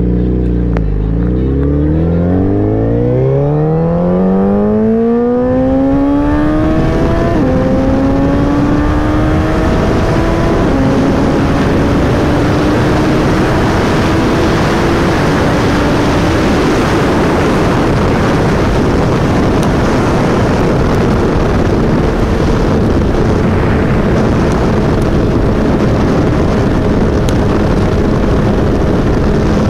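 Suzuki Hayabusa's inline-four engine pulling hard, its revs climbing steeply over the first six or seven seconds. Two upshifts drop the pitch about seven and eleven seconds in, then the engine settles to a near-steady cruise under a rushing noise that builds with speed.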